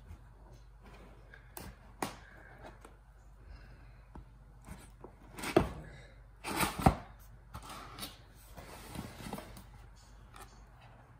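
A cardboard box being cut and opened by hand: a knife scraping along an edge near the start, then rustling and sliding card with scattered clicks. A cluster of sharp knocks about halfway through is the loudest part.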